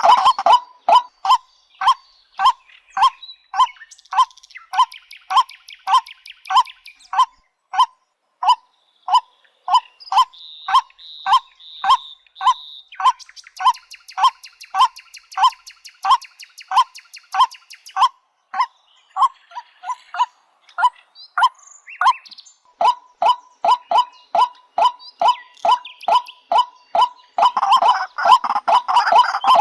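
Waterhen calling: one short note repeated over and over, about twice a second. The calls come thicker and louder near the end.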